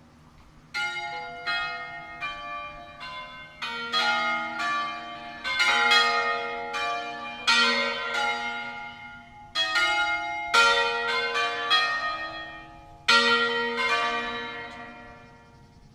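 Swinging church bells of a five-bell peal tuned in B♭ major, starting about a second in and striking in quick runs of strokes whose tones ring on and overlap, with two brief pauses between runs.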